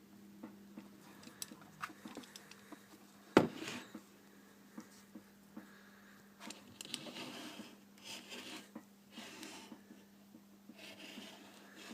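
Small clicks and one sharp knock about three and a half seconds in, then stretches of rubbing and scraping as small parts are handled, over a steady low hum.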